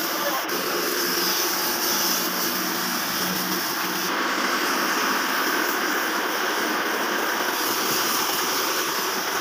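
Compressed-air gravity-feed paint spray gun hissing steadily as it sprays grey paint, with a machine running in a steady low hum underneath.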